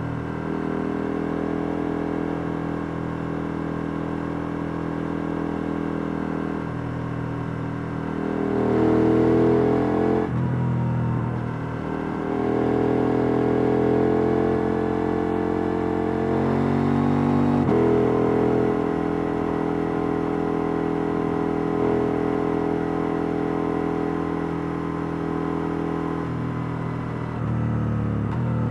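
KTM 890 Duke R's parallel-twin engine on its stock exhaust, heard on board while riding: the pitch climbs under throttle and drops sharply at shifts or throttle-off about ten and eighteen seconds in, then climbs again near the end.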